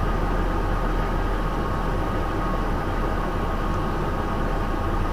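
Scammell S26 tractor unit's diesel engine running steadily as the lorry moves at walking pace, heard from inside the cab as a deep hum with a steady higher whine over it.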